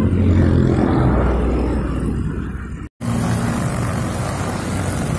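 Honda GX four-stroke brush cutter engine running steadily while its nylon line cuts grass along a concrete curb. The sound cuts out for a moment about three seconds in, then resumes with more hiss from the line.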